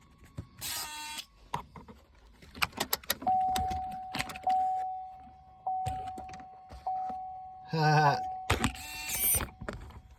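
A few sharp clicks inside a pickup cabin, then a steady electronic warning chime from the truck that starts about three seconds in and restarts every second or so. It sounds while the truck refuses to start, a theft deterrent fault caused by a wireless phone charger that was too close.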